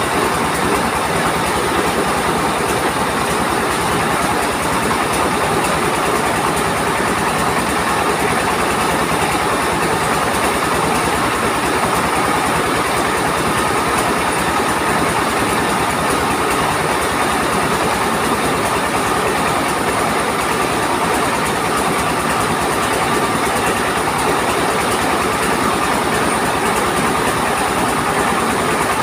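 Mobile rice mill running steadily: an engine with a large flywheel belt-driving the rice huller and polisher, giving a loud, even machine noise with a fast, regular engine beat under it.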